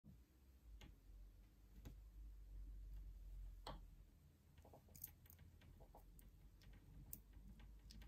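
Near silence with faint, irregular small clicks and rustles: fingers working Cat6 conductors through a clear plastic pass-through RJ45 connector, over a low steady hum.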